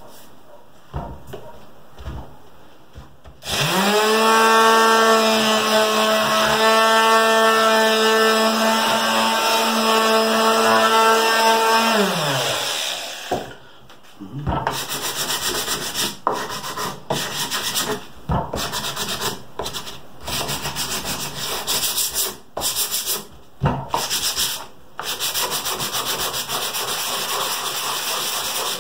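An electric palm sander runs with a steady hum for about nine seconds and then winds down. After that, a small wooden piece is sanded by hand in quick back-and-forth rubbing strokes with brief pauses.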